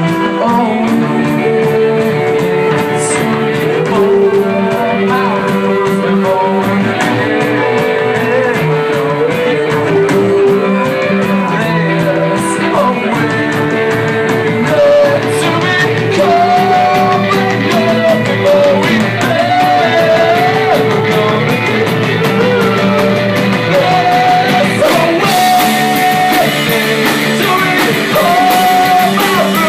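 A rock band playing live: drum kit keeping a steady beat under guitar and bass lines, with a higher wavering melody line coming in about halfway through.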